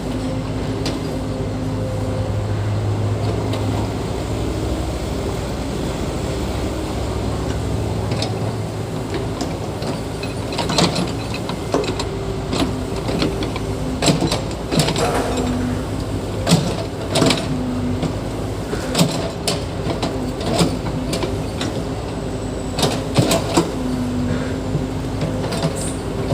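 Diesel engine of heavy tracked earthmoving equipment running steadily, with repeated sharp metallic clanks starting about ten seconds in.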